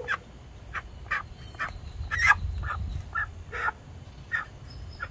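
Chickens clucking in short, repeated calls, about two a second at uneven spacing, the loudest a little over two seconds in.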